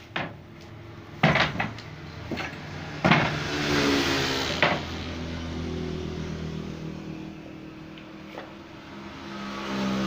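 Wooden planks knocked and set down onto a wooden frame, several sharp knocks in the first half, the loudest about a second and three seconds in. An engine hums in the background and swells near the end.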